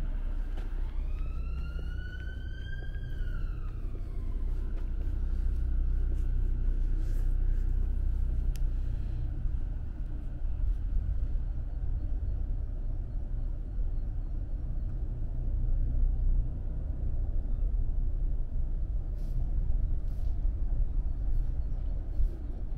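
A siren wails somewhere off in the streets, one slow rise and fall in pitch that dies away about four seconds in, over a steady low rumble.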